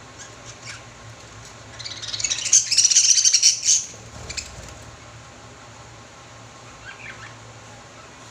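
Lovebirds giving a burst of rapid, shrill chattering calls about two seconds in, lasting about two seconds, with a few faint single chirps before and near the end.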